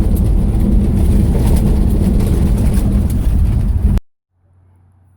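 Steady engine and road rumble inside the cab of a C10 pickup truck on the move. It cuts off abruptly about four seconds in, leaving only a faint low hum.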